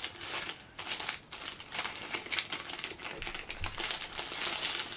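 Crinkling of a new camera's white protective wrapping as it is handled and unwrapped by hand: a continuous run of small irregular crackles.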